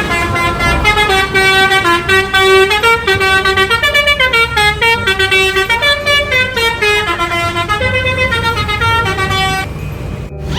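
Bus 'telolet' horn, a set of tuned horns playing a melody in quick stepped notes over a low engine rumble; the tune cuts off suddenly near the end.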